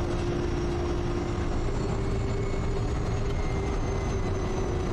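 Quest Kodiak's turboprop engine and propeller running at low taxi power: a steady drone with a constant hum.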